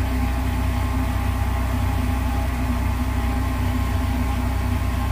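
Steady low mechanical hum of a running machine, holding one pitch throughout.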